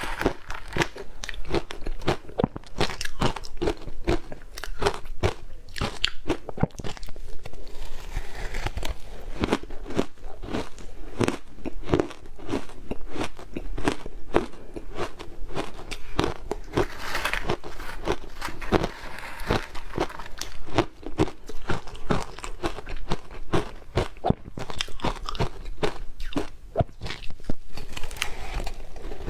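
Frozen matcha shaved ice being bitten and chewed: a dense, continuous run of sharp crackling crunches, one bite after another.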